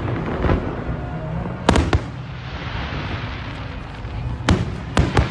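Aerial fireworks shells bursting with sharp bangs: one about a second and a half in, then three in quick succession near the end.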